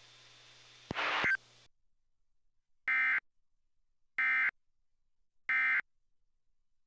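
Emergency Alert System end-of-message signal: three short, identical bursts of screechy digital data tones, about 1.3 seconds apart, closing the test broadcast. About a second in, before them, comes a brief burst of noise.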